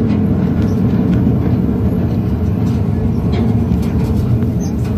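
Miniature ride-on train rolling along its track, heard from inside the caboose: a steady low rumble with a few faint clicks.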